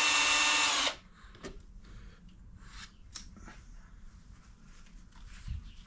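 Electric drill spinning a three-stone brake cylinder hone inside a wheel cylinder bore, running at a steady low speed and stopping suddenly about a second in. Faint clicks and rubbing from handling the part follow.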